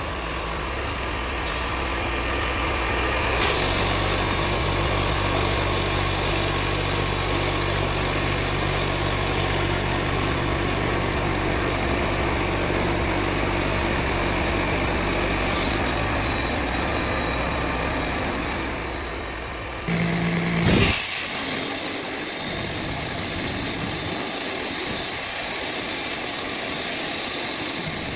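Wood-Mizer portable band sawmill running steadily, its engine and band blade cutting a poplar log into boards. About two-thirds of the way through the sound changes abruptly: a single knock, then the deep rumble drops away while the machine keeps running.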